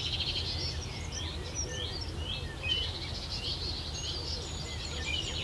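Small birds chirping in many short, quick calls over a steady low rumble.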